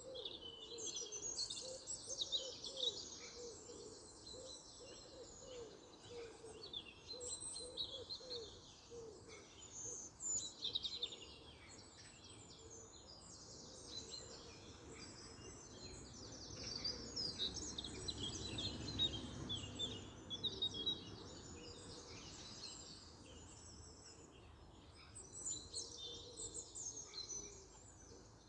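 Several songbirds singing and chirping in overlapping phrases, with a lower repeated call through the first third. A low rumble swells and fades midway.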